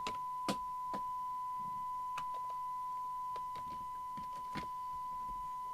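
Steady 1 kHz test tone from a Midland 3001 CB radio's speaker as its receiver demodulates a tone-modulated test signal from a signal generator. A few faint clicks come in over it.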